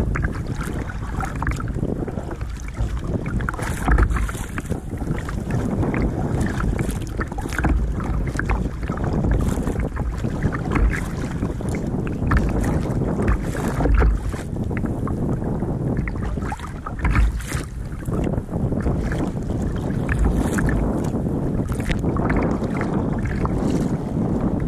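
Sea water sloshing and splashing against a plastic sit-on-top kayak's bow as it rides choppy waves, with many short splashes. Wind rumbling on the microphone throughout.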